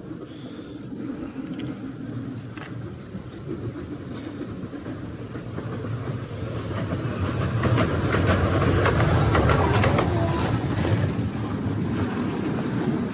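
A small rail car rolling along its track. It grows louder to a peak around eight to ten seconds in, then eases off, with rapid rattling clicks and a thin high squeal.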